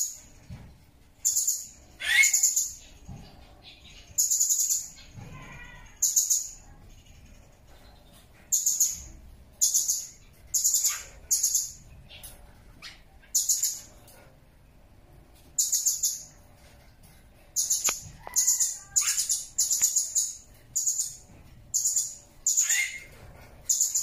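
Blue-crowned hanging parrot (serindit) giving short, shrill, very high-pitched calls over and over at uneven intervals, about one a second, with quicker runs in places.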